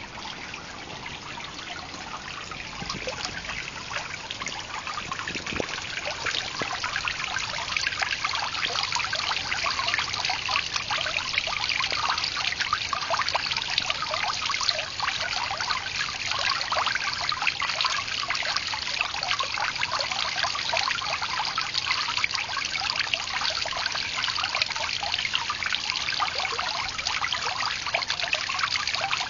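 Garden water feature splashing and trickling steadily, a dense patter of falling water that grows louder over the first several seconds and then holds steady.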